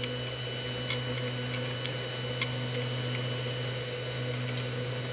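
Spindle motor of a mini 4-axis CNC router running steadily: a constant low hum with a faint higher whine. A few faint clicks sound over it.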